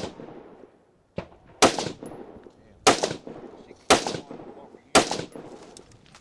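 Rifle shots from a prone shooter: one fainter crack about a second in, then four loud shots about a second apart, each trailing off in echo.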